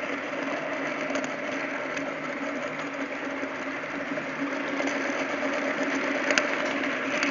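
TT-scale model train running along the track, heard from a camera riding on one of its wagons: a steady mechanical hum with rolling wheel noise, and a single sharp click about six seconds in.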